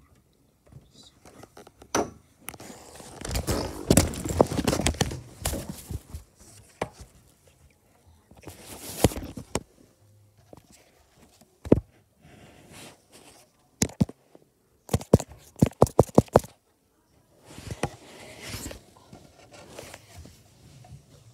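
Rustling and bumping of a handheld phone being carried around a room, with footsteps and a quick run of about seven sharp knocks about fifteen seconds in.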